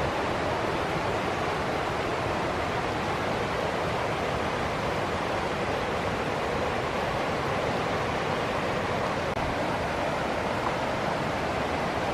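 Steady rushing of water, even and unbroken, with a very brief dropout about nine seconds in.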